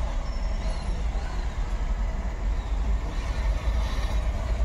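Steady low rumble of a motor vehicle, with an even wash of road noise.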